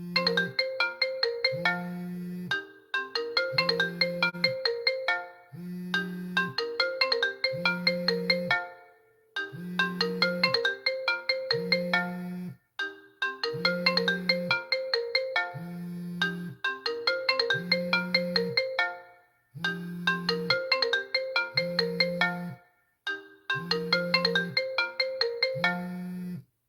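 iPhone 4 ringing for an incoming call: a bright, quick, marimba-like ringtone phrase repeated about eight times, each a little over three seconds with a short gap between. Short low buzzes from the phone's vibration motor come about twice per phrase. It all stops just before the end.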